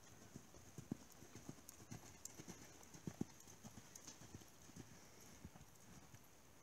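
Faint, soft hoofbeats of a ridden horse loping on a dirt arena floor, a few dull thuds a second.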